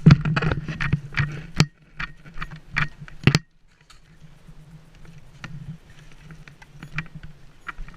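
Irregular sharp clicks and clatter, loud and close together for the first three and a half seconds, then fainter and sparser, over a steady low hum.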